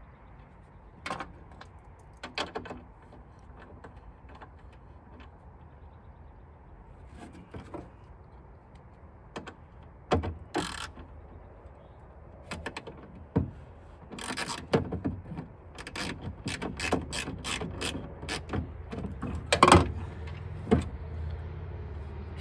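Hand tools working on bolts inside a car's steel tailgate: scattered metallic clicks and knocks, sparse at first, then coming quicker and louder in the second half, the loudest knock near the end.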